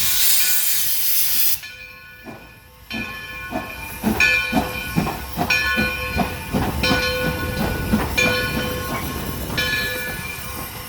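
Steam locomotive: a loud hiss of released steam for about the first second and a half, then a rhythmic run of exhaust beats with ringing metallic tones as it works along the track.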